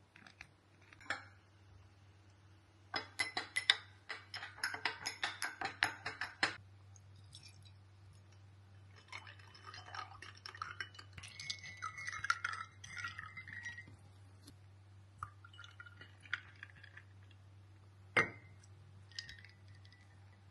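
Ice cubes and glassware on a kitchen counter: a quick run of clinks as ice drops into ceramic mugs, then pouring and scraping, and a single sharp clink of a glass cup against a mug near the end.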